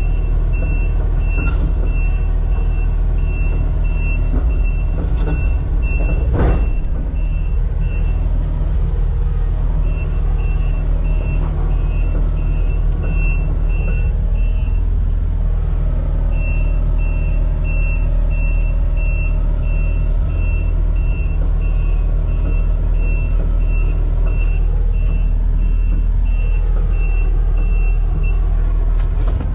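Case excavator's diesel engine running steadily, heard from inside the cab, while its travel alarm beeps in three runs, stopping twice briefly as the machine pauses; a single clunk about six seconds in.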